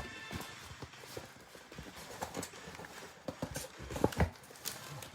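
Irregular taps, clicks and rustles of trading-card mega boxes and their packaging being handled and opened, with two louder knocks about four seconds in.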